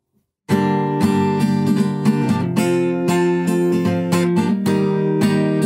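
Acoustic guitar strummed in a quick down-up pattern, chords ringing through the strokes, starting about half a second in after a brief silence.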